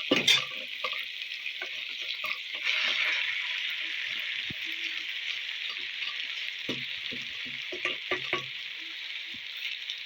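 Vegetables and vermicelli sizzling steadily in a frying pan, with a cooking utensil knocking and scraping against the pan just after the start and again several times around seven to eight seconds in.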